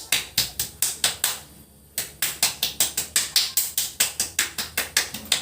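A rapid, even series of sharp taps or clicks, about five a second, breaking off briefly near the two-second mark and then resuming.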